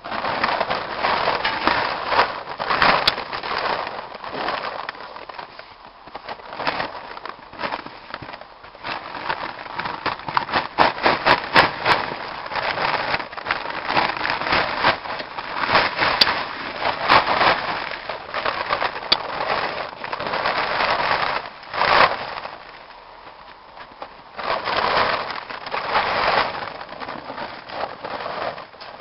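Plastic tarp crinkling and crackling as it is pulled and gathered off a riding lawn mower, in uneven bursts with a short lull about three quarters through.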